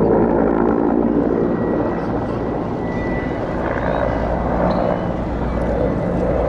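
Mil Mi-8MTKO helicopter flying past, the steady drone of its main rotor and twin turboshaft engines.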